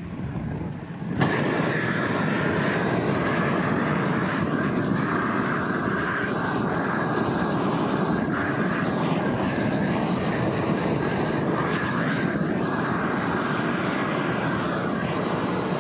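Propane roofing torch burning at full flame: a steady, loud rush that opens up about a second in and stops abruptly near the end. The flame is melting the bitumen on the underside of a cap sheet flashing to bond it down.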